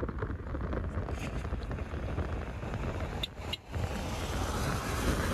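Moving motor vehicle: steady road and engine rumble mixed with wind noise, starting abruptly and dropping out briefly about three and a half seconds in.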